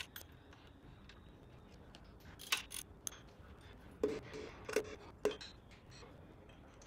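Hand tools knocking and clinking against a bare V8 engine block during teardown: a handful of sharp metal knocks, a few ringing briefly, loudest a little past halfway.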